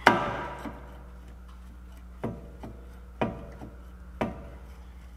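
A steel pry tool knocking on the rear brake caliper and rotor, each knock ringing briefly: one loud strike at the start, then three more about a second apart from about two seconds in, with fainter taps between.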